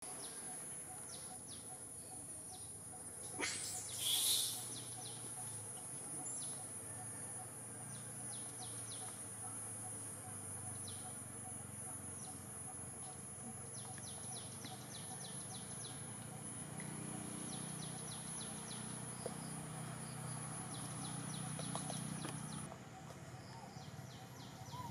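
Forest insects buzzing in a steady high-pitched drone, with repeated runs of rapid chirping ticks. There is a brief louder sound about three and a half seconds in, and the drone stops near the end.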